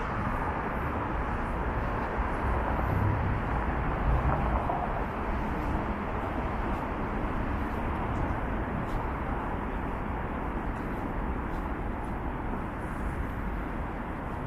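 City street ambience: a steady hum of road traffic, a little louder in the first few seconds and then easing off.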